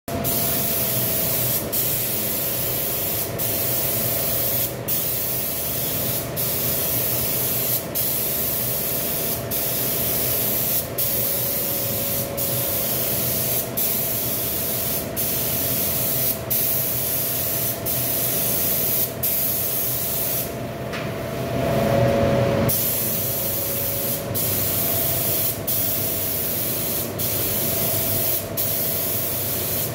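Compressed-air spray gun with a siphon-feed cup spraying paint: a steady hiss of air and atomised paint with a faint steady tone. The hiss breaks off briefly about every second and a half. About 21 seconds in it turns lower and louder for about two seconds.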